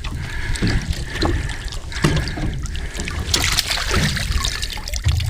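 Water slapping and lapping against the hull of a small boat in a low wind rumble, with dull knocks about once a second and a brief splashy hiss about three seconds in.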